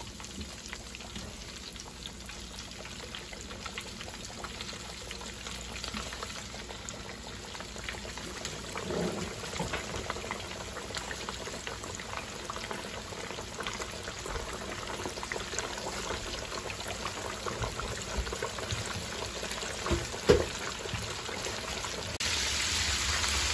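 Coated fish pieces deep-frying in a pot of hot oil: a steady crackling sizzle of bubbling oil that gets louder near the end. A single brief knock about 20 seconds in.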